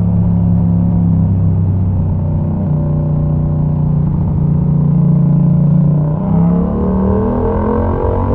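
Yamaha MT-07's parallel-twin engine running through a Mivv exhaust with the dB killer removed, heard onboard while riding. It holds a fairly steady engine note for about six seconds, then rises in pitch as the bike accelerates.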